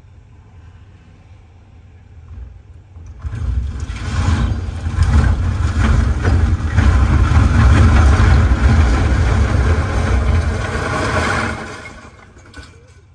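A 60-foot concrete silo collapsing: a loud crashing rumble with much crackling of breaking concrete, building up about three seconds in and dying away near the end, over a low steady engine hum from the excavator.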